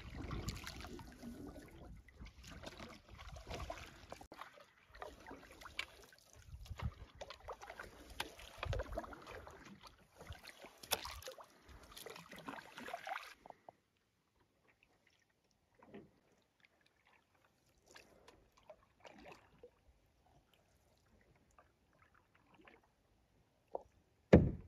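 Paddling a canoe: paddle strokes dipping and pulling through lake water, with water and wind noise, for the first thirteen seconds or so. Then it cuts to near quiet with a few faint, scattered sounds and a single loud thump just before the end.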